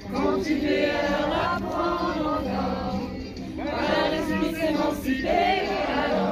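A small group of mixed voices, women and children among them, singing a French song together in unison, with short breaks between phrases.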